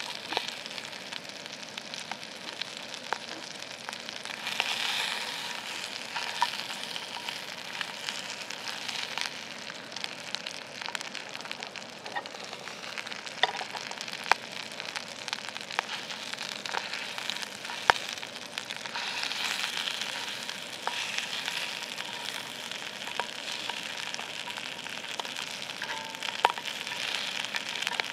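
Beef frying in a cast iron pan: a steady sizzle with frequent sharp pops of spattering fat, swelling louder twice.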